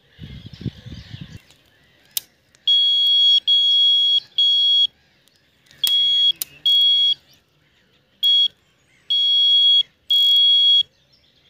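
Electronic carp bite alarm on a rod pod sounding a loud, steady high beep in eight irregular runs of a fraction of a second to about a second, as line is drawn across its sensor while the rod is handled and set up. A few knocks and sharp clicks of handling come first.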